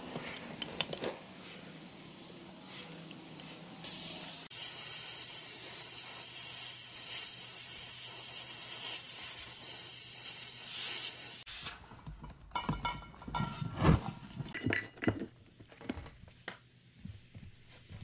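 Oxy-acetylene torch flame hissing steadily for about eight seconds while it heats a 3/8 rod clamped in a vise for bending. The hiss starts about four seconds in and cuts off suddenly, and is followed by a run of metal knocks and clanks as the hot rod is worked in the vise.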